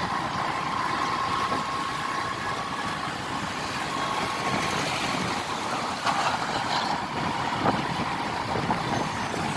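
Motorcycle engine running steadily while riding along a city road, mixed with road and wind noise and passing traffic; a steady whine sounds through the first few seconds.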